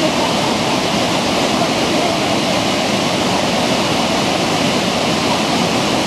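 Sogi Falls, a wide waterfall, and the rapids below it rushing steadily: a continuous, even water noise with no change.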